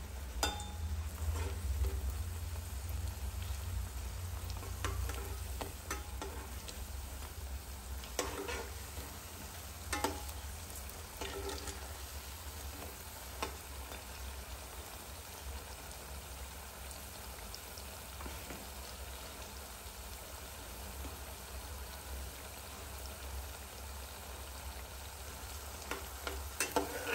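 Battered potato slices frying in hot oil in a kadhai, a steady sizzle. A few taps and scrapes of a steel spatula against the pan, with a cluster near the end as the fritters are turned.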